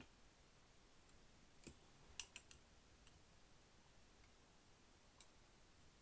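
Faint clicks of small metal parts as a balisong handle is fitted over its pivot washers: a few scattered ticks, the sharpest a quick cluster of three about two seconds in.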